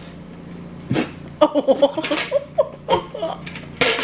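A person laughing: a sharp breathy gasp, then a quick run of short 'ha' bursts from about a second and a half in, more laughs after, and another breathy gasp near the end.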